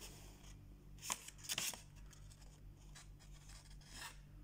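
Paper rustling as a printed delivery waybill is handled and lifted: a few short crinkles, the loudest about a second and a half in, over a faint steady low hum.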